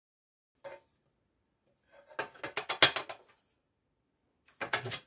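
Thin sheet steel clanking and scraping against a bench-mounted sheet metal folder as the bent piece is handled. There is a single light knock early on, then a rattle of metal clanks in the middle, the loudest near three seconds in, and another short clatter near the end.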